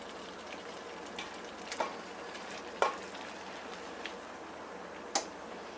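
Part-cooked basmati rice tipped into a metal pot of simmering masala: a faint steady sizzle with three sharp clicks against the pot.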